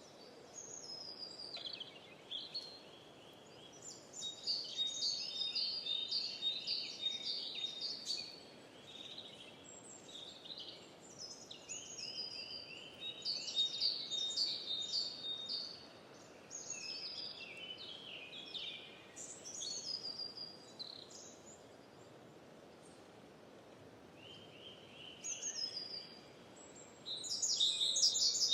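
Birds singing in bouts of quick, high chirping phrases, with short lulls between them and a quieter stretch about three quarters of the way through, over a soft steady outdoor background hiss.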